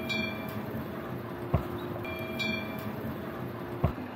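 Small inclined cable-car lift running on its hillside track: a steady motor hum, two short clunks about two seconds apart, and a high beep sounding twice.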